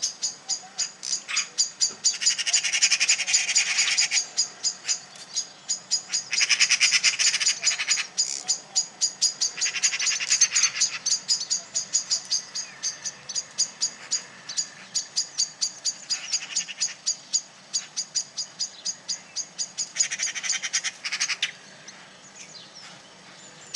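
Small birds giving sharp, high alarm chips about four times a second, broken every few seconds by harsh rattling scold bursts. These are alarm and mobbing calls aimed at a cat.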